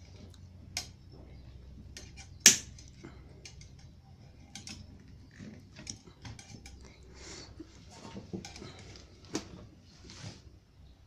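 Wire-cutting pliers snipping the output wires of an opened computer power supply: one sharp snap about two and a half seconds in, with lighter clicks and the rustle of bundled cables being handled.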